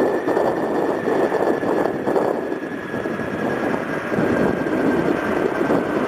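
Boeing 737-800's CFM56 turbofan engines during the landing rollout: a steady loud rushing noise with a high whine that falls slightly as the jet slows on the runway.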